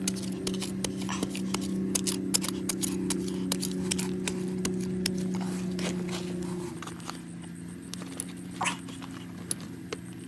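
A small hand trowel digging into packed soil and stones makes rapid scraping and clicking strokes for about the first six seconds, then quieter brushing of dirt by hand. Near the end come a few short, high whine-like calls. A steady low hum runs underneath and shifts about two-thirds of the way in.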